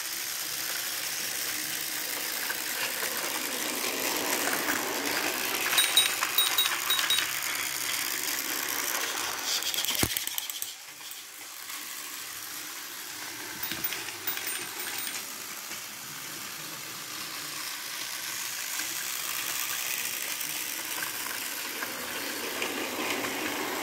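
Battery-powered Tomy Trackmaster Diesel 10 toy train running on plastic track, its small motor and gears whirring steadily with a light rattle. One sharp click comes about ten seconds in, after which the whirring is quieter for a few seconds before rising again.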